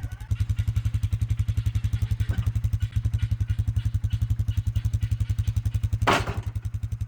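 A low machine running steadily with an even pulse of about ten beats a second, and a single sharp clatter about six seconds in.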